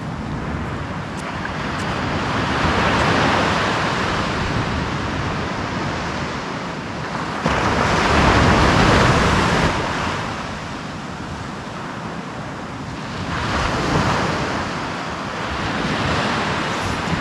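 Sea surf breaking and washing up a sandy beach, rising in three surges a few seconds apart, with wind buffeting the microphone.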